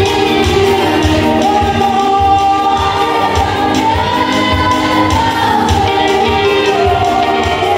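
Choir singing a gospel praise song in Kinyarwanda, voices together over a steady low beat.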